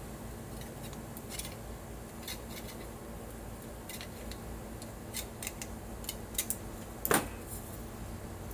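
Hand snips cutting aluminium sheet: a string of short, sharp snips and clicks, the loudest about seven seconds in, over a steady low hum.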